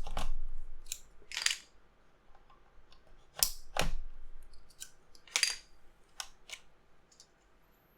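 Plastic keycaps being pulled off and pressed onto a mechanical keyboard's switches: about nine sharp, irregular clicks, thinning out toward the end.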